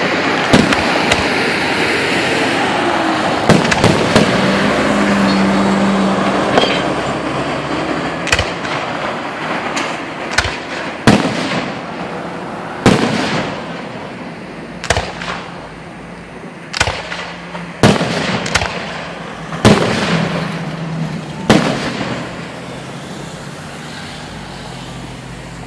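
Aerial fireworks shells bursting, a string of sharp booms about every one to two seconds. A loud, continuous hiss fills the first several seconds.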